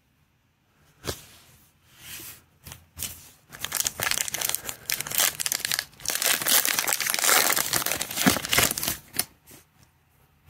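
The plastic wrapper of a pack of Panini Mosaic football cards being torn open and crinkled in the hands: a few light handling clicks at first, then about six seconds of dense crinkling and tearing that stops shortly before the end.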